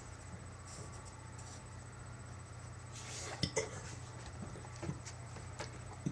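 Quiet room tone: a steady low hum with a few faint clicks, the clearest two close together about three and a half seconds in.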